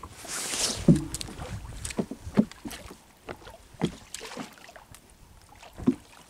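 Scattered knocks and clatter of gear on a small wooden fishing boat as the crew handles the handline and a gaff hook, with a brief hiss near the start.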